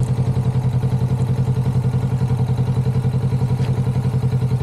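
Kawasaki Vulcan S 650's parallel-twin engine running steadily at low revs, its exhaust pulsing at an even beat with no change in pitch.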